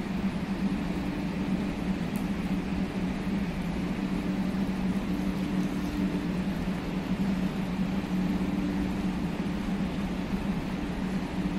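Steady machine hum: two low steady tones over an even noise, with no rise or fall.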